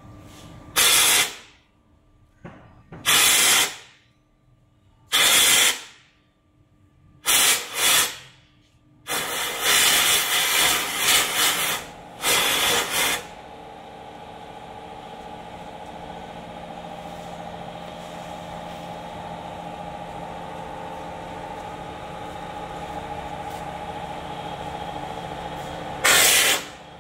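Teddy bear stuffing machine blowing fiberfill: short, loud hissing blasts of air, five in the first eight seconds and then a run of blasts lasting about four seconds. After that the machine's motor hums steadily with a held tone, and one more blast comes near the end.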